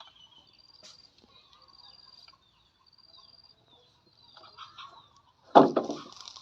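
Short high chirping trills from an insect or bird, repeating about once a second, five times. Near the end comes one sudden loud knock.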